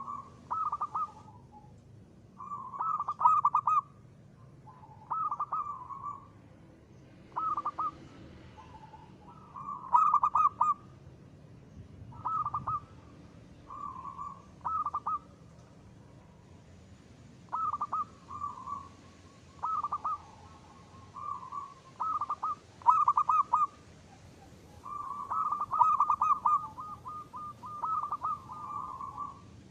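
Zebra dove (perkutut) cooing in short, repeated, trilling phrases about every one to two seconds, with brief pauses between them.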